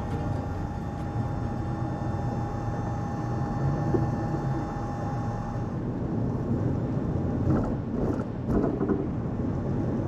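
Road noise inside a van's cab as it drives slowly: a steady low rumble, with a few short knocks or rattles a little past the middle.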